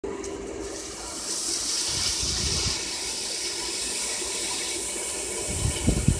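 Hot steel axe blade quenched in a bucket of water to harden it, the water hissing and bubbling steadily around the steel. The hiss swells about a second in, and a few low thumps come near the end.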